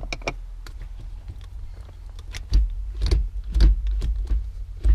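Shift knob and shifter being handled while the knob is screwed on: light clicks and taps, then heavier knocks and deep thumps from about halfway through.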